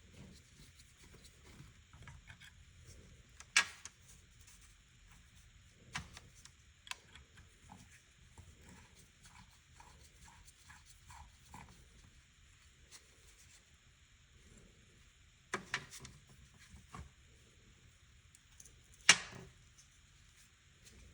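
Tools and small parts being handled on a workbench: a few scattered sharp clicks and knocks, the loudest near the end, with a faint run of small ticks in the middle.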